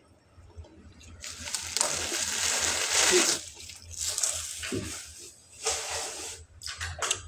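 Water running from a tap into a sink, starting about a second in and coming in uneven spells with breaks.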